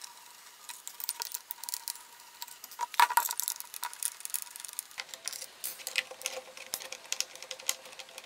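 Small, irregular clicks and ticks of a long screwdriver turning out self-tapping screws through access holes in a plastic speaker housing, with a louder clatter about three seconds in.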